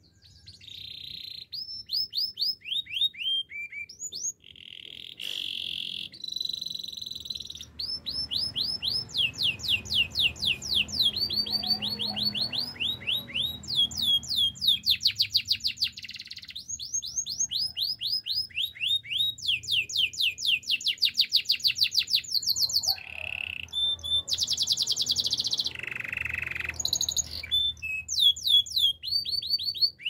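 Domestic canary singing a long, almost unbroken song of fast trills, each made of rapidly repeated downward-sweeping notes, switching to a new trill every second or two, with a few rougher, noisier phrases mixed in.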